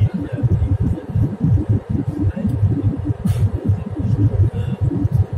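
Jet airliner cabin noise during the climb after takeoff: a loud, uneven low rumble of the engines and rushing air, heard from a window seat over the wing.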